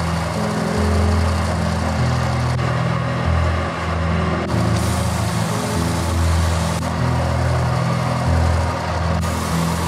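Benchtop oscillating edge belt sander running steadily, with the hiss of wood being sanded, under background music with a steady bass line.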